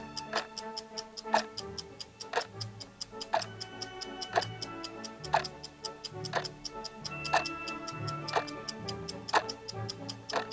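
Ticking clock sound effect of a countdown timer, one sharp tick each second with softer ticks in between, over background music.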